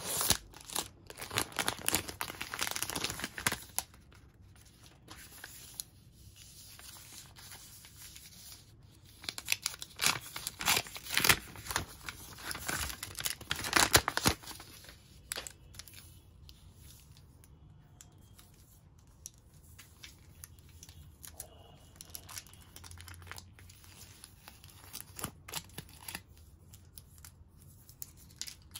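A chocolate bar's paper and foil wrapper being torn and unwrapped by hand, crinkling and tearing in bouts. It is loudest in the first few seconds and again from about ten to fifteen seconds in, then goes on as quieter, scattered crackles.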